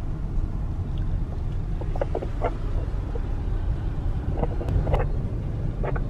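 Steady low road and engine rumble inside a moving car's cabin.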